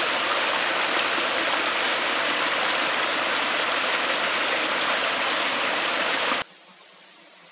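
Steady rush of flowing stream water that cuts off abruptly about six and a half seconds in, leaving only a faint hiss.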